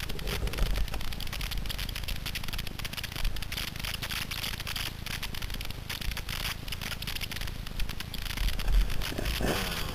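Continuous crackling and scraping picked up by a helmet-mounted action camera, with low rumbling bumps underneath: handling noise as a dirt bike is wrestled upright and moved through dry brush after a crash.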